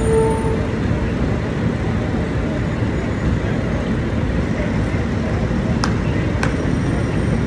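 Steady city street traffic rumble. A short pitched tone sounds right at the start, and two sharp clicks come about six seconds in.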